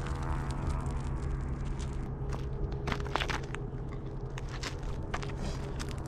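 Scattered crunching steps on loose gravel, over a steady low hum.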